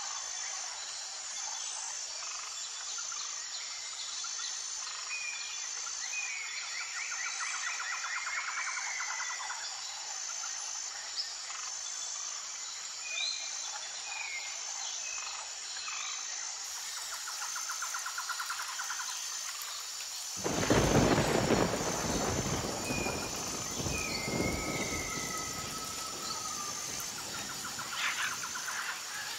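Outdoor nature ambience: birds chirping and trilling over a steady high-pitched drone, with a loud low rumble starting about two-thirds of the way through and fading over a few seconds.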